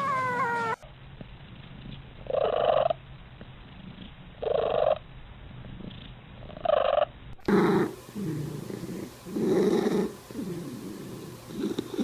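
Domestic cats vocalising across short clips: a rising call cut off about a second in, then three separate calls about two seconds apart, then a faster run of low, purr-like calls about once a second.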